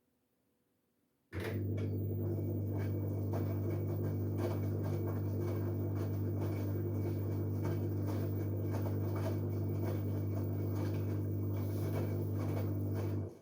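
LG Direct Drive 8.5 kg washing machine running mid-cycle: a steady low hum with a scatter of small irregular clicks. It starts suddenly about a second in and cuts off just before the end.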